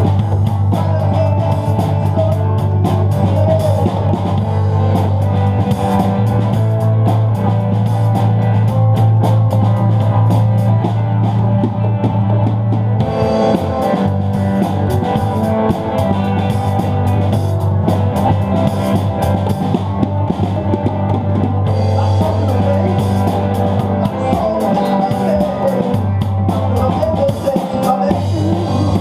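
Rock band playing, drum kit and guitar, in a poor-quality recording with a heavy, boomy low end.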